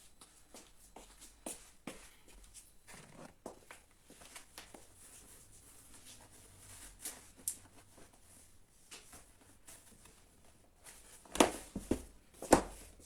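Scattered faint knocks, clicks and rustles of a person moving about and handling things in a small room, with a few louder thumps near the end.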